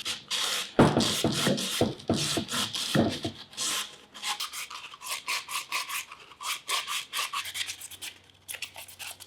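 Sandpaper rubbed by hand over the cut edges of PVC pipe in quick, repeated back-and-forth strokes, roughening the plastic so the PVC cement will grip.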